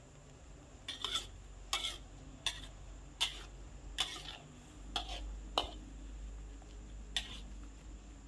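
Metal spatula scraping and clinking against a wok while stirring water spinach in broth, about eight quick strokes at uneven intervals.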